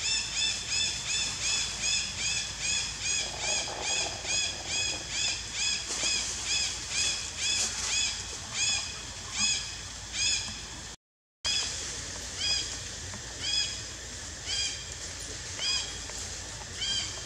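A quick run of short, high chirping calls from an animal, about three a second, each call repeated alike; after about eight seconds they come more sparsely, with a brief dropout near eleven seconds, then single calls every second or so.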